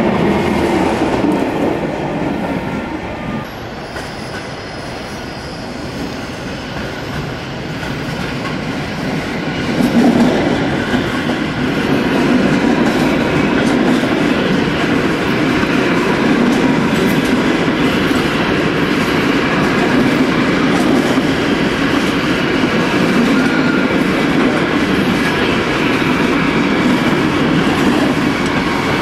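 A train running on station tracks: a steady rumble of wheels on rails with some wheel squeal. It dips a few seconds in, then grows louder about a third of the way through and holds steady.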